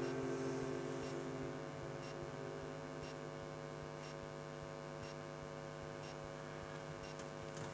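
String quartet sustaining a quiet final chord that fades: the upper notes die away about two seconds in, leaving the lower notes held softly.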